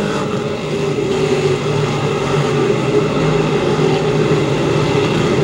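A field of dirt-track crate modifieds racing in a pack, many V8 engines running together in one steady, dense drone.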